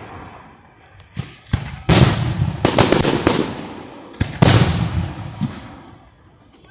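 Aerial fireworks bursting overhead: a few small pops, then a sharp bang about two seconds in, more bangs close after it, and another big bang at about four and a half seconds. Each bang trails off slowly.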